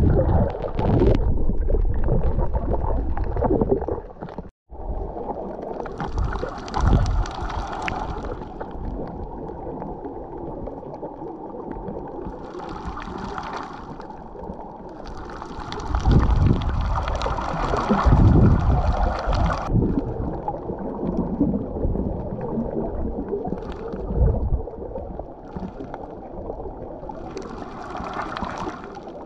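Muffled water noise picked up by a camera held underwater while snorkeling: a rumbling, gurgling wash, with several stretches of brighter hissing and splashing. There is a brief cut-out just before five seconds in.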